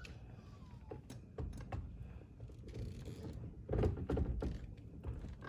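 A few dull thunks and clicks from a steering wheel being handled and pushed onto the splined steering-column shaft. The loudest cluster of knocks comes a little before four seconds in.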